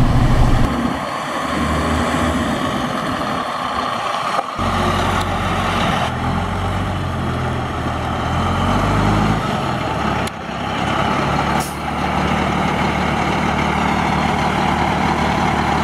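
Semi truck's diesel engine running, its pitch rising and falling several times as the engine speed changes, with a short hiss of air about three-quarters of the way through.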